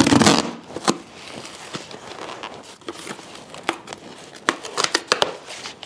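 Cardboard box being torn open along its perforated top: a louder rip right at the start, then a string of short crackles and clicks as the card is worked loose.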